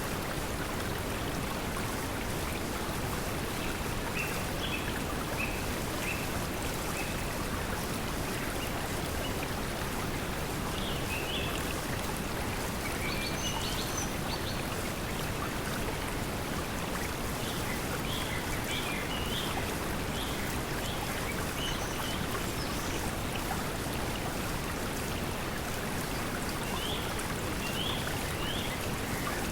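Steady pink noise mixed with flowing water, with short bird chirps scattered through it.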